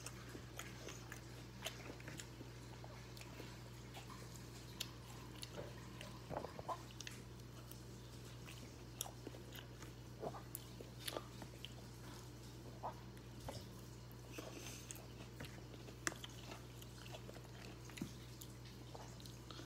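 A person biting and chewing food, with scattered irregular clicks and smacks over a steady low hum.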